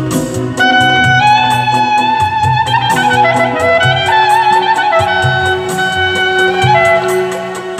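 Clarinet playing an ornamented melody of held, wavering notes with pitch bends, over electronic keyboard accompaniment with a steady drum beat and a sustained low drone note.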